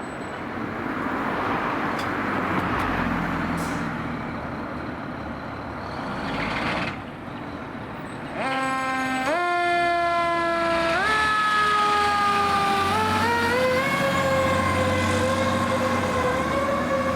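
Vehicle noise for the first seven seconds, then a fire apparatus siren starts about eight seconds in, climbs in pitch in several steps and holds a high wail.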